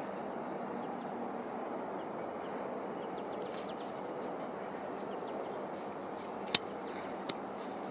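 Steady outdoor background noise with faint bird chirps, broken near the end by two sharp clicks less than a second apart.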